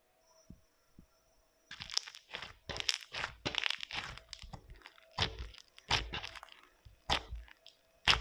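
Floam slime full of foam beads being squeezed and worked by hand, giving a run of crunchy crackles several times a second. It starts about two seconds in, after two faint soft taps.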